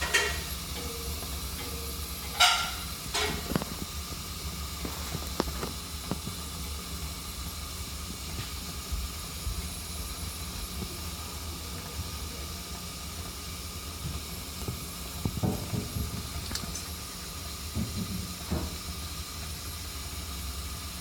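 Main gas burners of a late-1970s to mid-1980s Day and Night furnace burning steadily: a low rumble with a hiss. A few brief knocks break through, the sharpest about two and a half seconds in.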